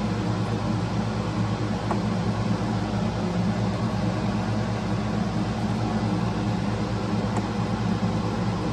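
Steady hum of a running air conditioner, with a couple of faint small clicks.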